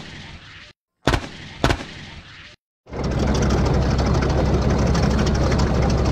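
Two sharp bangs, each with a short fading tail, in the first two seconds. After a brief silence comes a steady engine sound effect with a strong low drone and a fine rapid rattle, the running motor of a cartoon toy vehicle driving along.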